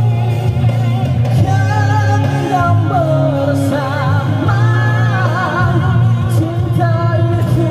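A man singing a slow melody with vibrato into a microphone over instrumental backing music, amplified through a PA system.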